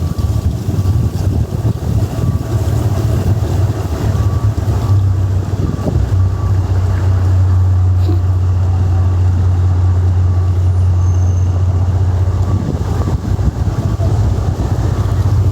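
A steady low engine drone, with wind buffeting the microphone.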